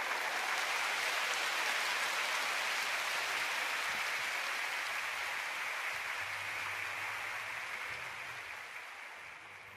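Large audience applauding: a steady, dense clapping that slowly dies away over the second half.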